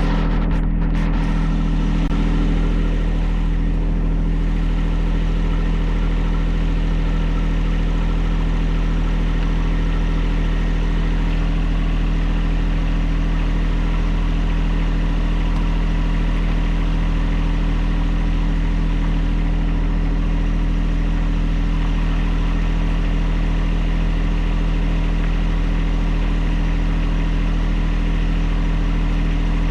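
An engine running steadily at one constant speed, with no revving or change in pitch.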